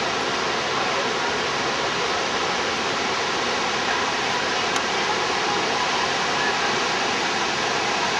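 Steady, unbroken rush of falling water from Niagara's Horseshoe Falls.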